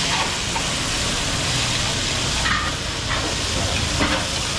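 Thin slices of beef sizzling with a steady, loud hiss in small cast-iron skillets over gas burners, stirred with a metal spatula and tongs.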